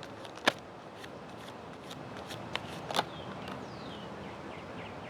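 A few sharp clicks and taps of cards being handled and laid down, loudest about half a second in and again near three seconds, over a steady outdoor hiss. Faint falling bird chirps sound in the middle.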